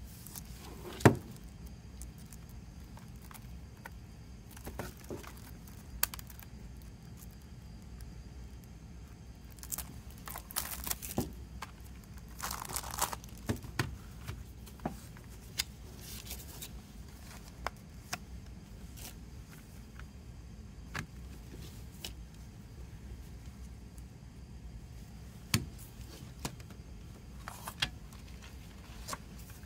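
Cellophane shrink wrap being torn and crinkled off a plastic CD jewel case, with scattered sharp clicks and taps as the case is handled and opened. The loudest click comes about a second in, and the crinkling is thickest in the middle.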